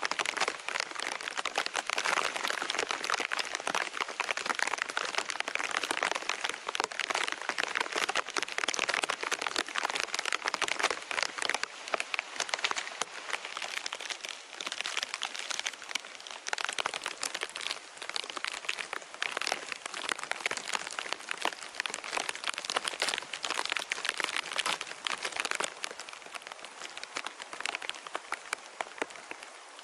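Steady rain pattering on leaves and grass as a dense crackling hiss that eases a little near the end.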